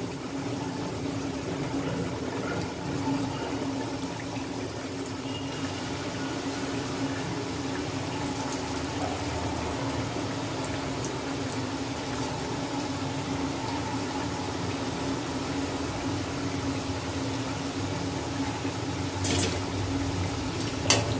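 Palm-fruit rice-flour dumplings deep-frying in hot oil in a steel wok, a steady sizzle and bubbling. Near the end come a couple of sharp metal clinks from the slotted spoon against the pan.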